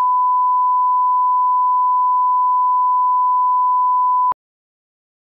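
Steady 1 kHz sine test tone, the line-up reference tone that goes with colour bars, cutting off suddenly about four seconds in.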